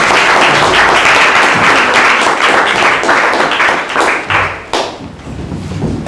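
Audience applauding, thinning to a few last claps and dying away about five seconds in.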